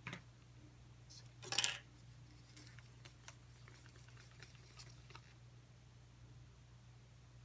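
Quiet handling of paint supplies: a click at the start, a short hissing burst about one and a half seconds in, then scattered faint taps over a steady low hum.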